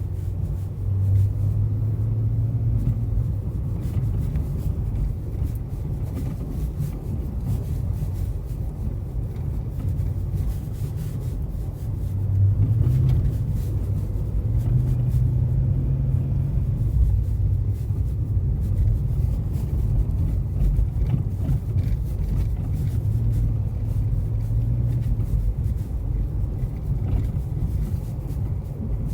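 Car on the move: a steady low rumble of road and running gear, with faint scattered knocks, recorded as a suspension noise.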